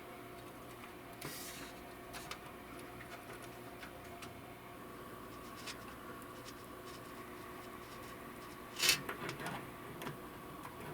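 Faint small clicks and handling noises of small parts and tools being worked by hand, over a low steady room hum, with one short louder rustle or scrape about nine seconds in.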